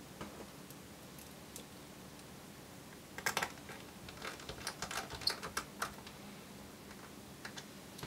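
Faint light clicks and taps of a small screwdriver and screw fastening an M.2 NVMe SSD at its end mounting point in a laptop. They come in clusters from about three to six seconds in, with a few more near the end.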